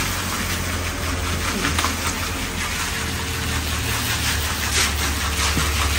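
Steady engine and road rumble heard inside a moving car, a low drone under a constant hiss.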